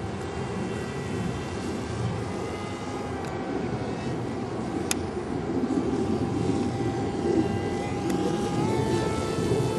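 Radio-controlled foam delta-wing plane flying overhead: its motor and propeller give a thin whine that drifts in pitch and steps up slightly near the end. A steady low rushing noise runs underneath, with a single sharp click about halfway.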